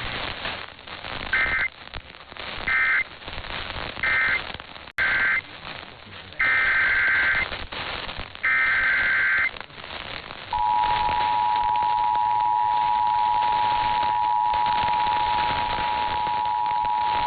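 Emergency Alert System digital data bursts, rasping two-pitch warbles over radio static. First come three short end-of-message bursts, then after a brief dropout three longer header bursts announcing the next alert. About ten seconds in, the steady two-tone EAS attention signal starts and holds.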